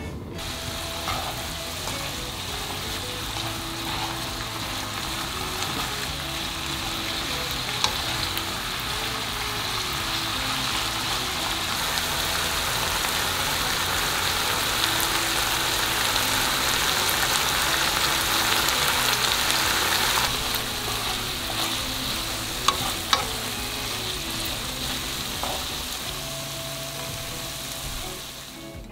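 Sliced pork and onions sizzling in a frying pan in a ginger-soy sauce as they are stirred, the sizzle growing louder toward the middle and easing about two-thirds of the way through. A few sharp clicks stand out, and soft background music runs underneath.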